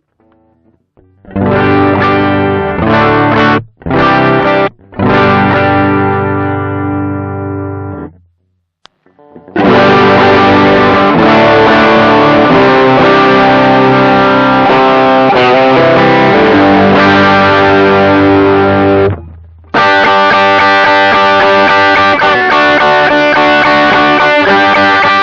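Electric guitar, a 1983 Japanese Aria Pro II with modified pickups, played direct through an amp-simulator pedal: a few short phrases and ringing chords, a pause, then longer continuous playing with a brief break near 19 s. It is announced as the clean tone, though it carries a little drive.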